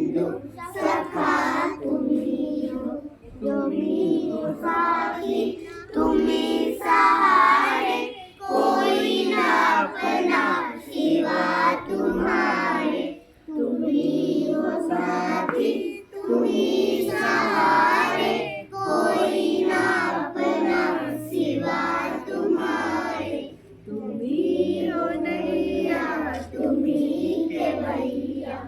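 A group of children singing a song together, phrase after phrase with short breaths between.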